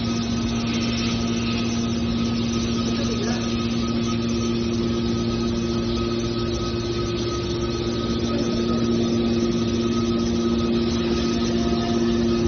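Hydraulic scrap steel baler's power unit running with a steady hum, holding one pitch without change.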